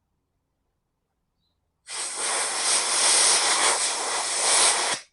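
A pressurised spray hissing steadily while cleaning out an engine pushrod. It starts about two seconds in, lasts about three seconds and cuts off sharply.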